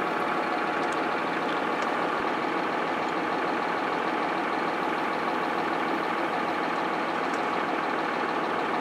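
Farm tractor engine idling steadily, heard from inside the cab.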